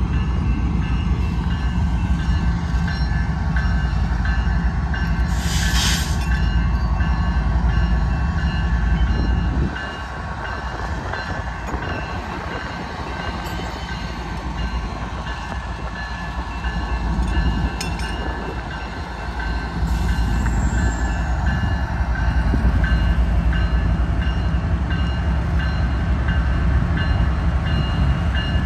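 Diesel-electric freight locomotive, a GE ES44AC with its 12-cylinder GEVO engine, rumbling as it leads a train slowly toward a road crossing. A brief hiss comes about five seconds in. The rumble eases for about ten seconds in the middle and then builds again.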